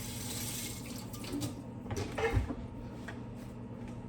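Water running from a kitchen tap into the sink, strongest in the first second, followed by a few short knocks.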